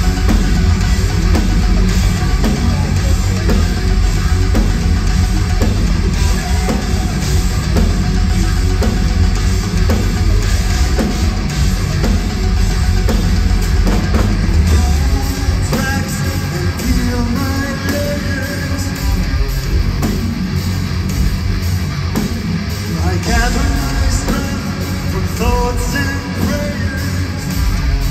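Progressive metal band playing live at full volume, with guitar, bass and drums. About halfway through, the heavy low end drops back and a sung vocal line comes in.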